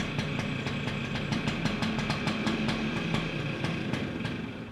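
Engine idling steadily with an even ticking of about six beats a second, fading out near the end.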